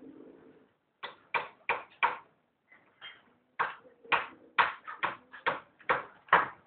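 A quick, irregular run of about a dozen sharp, loud knocks, with low pigeon cooing faintly underneath.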